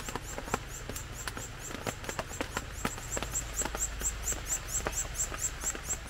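Red-eared parrotfinch nestlings begging at the nest while an adult feeds them: a rapid, even run of very high, thin calls, about five a second, with scattered sharp ticks.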